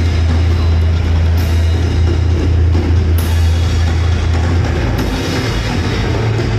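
Live rock band playing an instrumental passage: a drum kit with cymbal crashes about every two seconds over a loud, dominant low bass guitar line.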